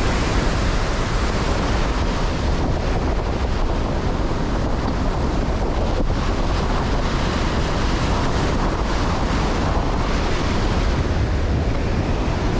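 Ocean surf breaking and washing up a sandy beach, a steady rush of waves, with wind buffeting the microphone and adding a heavy low rumble.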